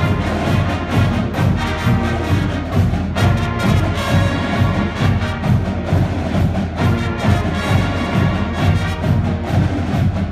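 Marching band playing: sousaphones, trombones, trumpets and saxophones over a steady beat from bass drums.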